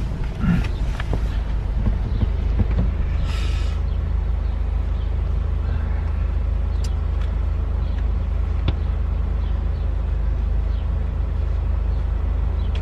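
Car engine running with a steady low rumble, heard from inside the cabin, with a brief hiss about three and a half seconds in.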